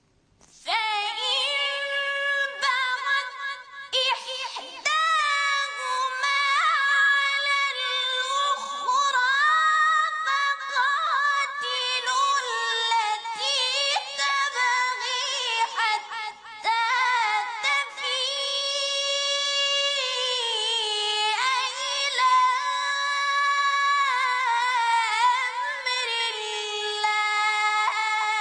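A high voice reciting the Quran in the drawn-out, melodic mujawwad style: long held notes that glide and turn in ornaments, with short breaks between phrases.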